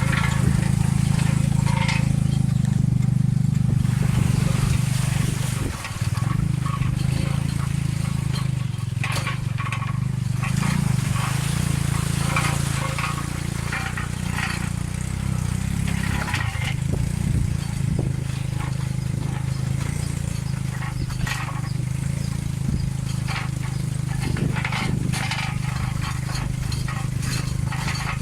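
Tuk-tuk's motorcycle engine running steadily under way on a rough dirt road, heard from aboard, with scattered knocks and rattles from the jolting carriage.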